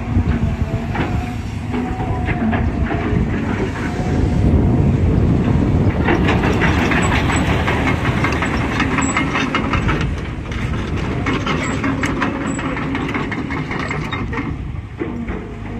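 Cat 320GC excavator at work: its Cat C4.4 ACERT diesel running under a dense, rapid metallic clatter, loudest in the middle of the stretch.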